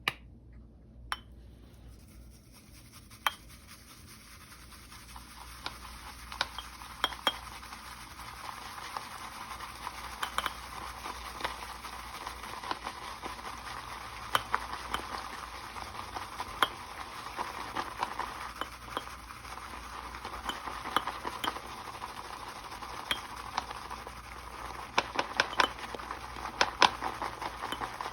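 Synthetic shave brush working shave soap into a lather in a shave bowl: a steady wet swishing, with frequent clicks of the brush against the bowl. It starts with a few separate knocks and builds up over the first several seconds.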